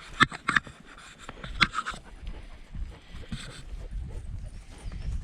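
A dog panting, with a few sharp clicks or knocks in the first two seconds.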